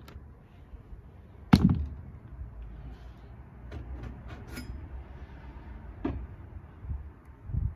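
A sharp knock about one and a half seconds in, then a few lighter clicks and another knock about six seconds in, over a low steady rumble.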